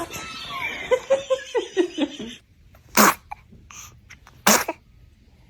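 A baby sneezing twice, two short sharp sneezes about a second and a half apart, after a couple of seconds of soft vocal sounds.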